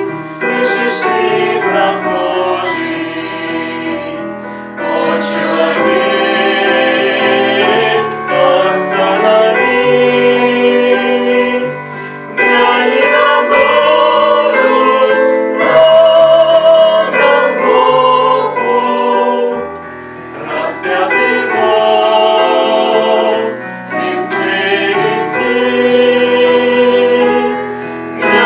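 A choir singing a Christian song in sung phrases a few seconds long, with brief breaks between them.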